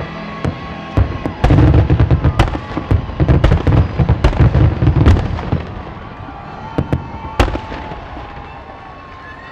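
Aerial fireworks shells bursting: a dense barrage of bangs and crackle from about a second and a half in until about five and a half seconds, then scattered bangs, with one sharp report later on.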